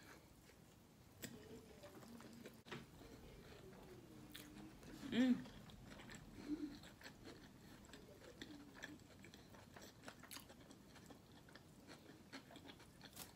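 A person chewing a mouthful of gyro quietly, with small wet mouth clicks. Faint humming runs under it, and a short voiced "mm" with a falling pitch sounds about five seconds in.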